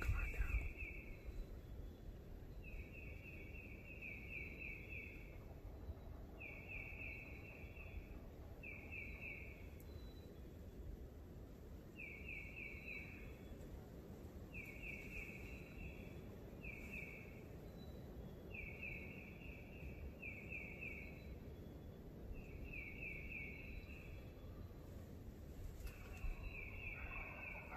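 A songbird singing a short phrase of quick, high notes over and over, about every two to three seconds, over faint woodland background noise.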